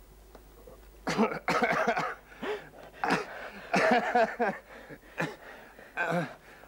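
Two men laughing together in several hearty bursts, starting about a second in.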